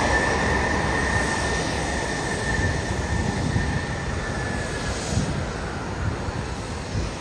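Jet airliner engines running at taxi power: a steady rumble with a high whine that slowly drops in pitch and fades out about five seconds in.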